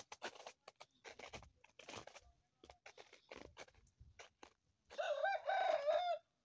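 Footsteps crunching in snow, about two steps a second. About five seconds in, a loud wavering call lasts a little over a second.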